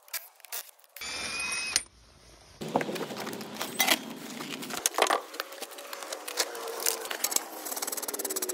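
Metal clinks and knocks of tools, wheel nuts and brake parts being handled during a truck disc-brake pad change, in short clips that cut abruptly, with a brief whine about a second in.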